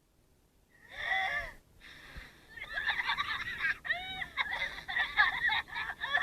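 High-pitched, squeaky cartoon character voices, starting about a second in, with pitch gliding up and down in quick squeals.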